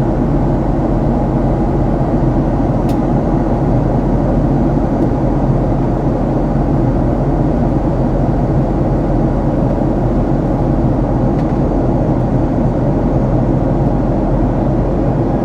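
Steady roar of a Boeing 737 MAX's CFM LEAP-1B jet engines and airflow heard inside the passenger cabin in flight, a constant low rumble that does not change.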